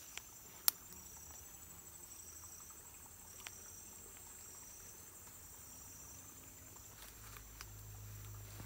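Rainforest insects chirring steadily at a high pitch, one of them in a pulsed call repeating about once a second. A few sharp clicks from the trap's sticks and string being handled stand out, the loudest under a second in.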